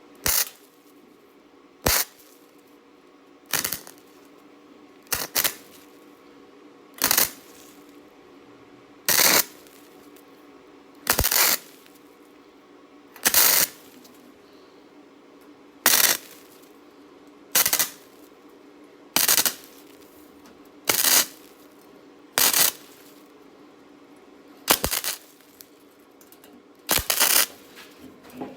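A welder laying a string of short tack welds on a thin sheet-steel patch: about fifteen brief welds, each a second or less, roughly every two seconds, with a faint steady hum between them.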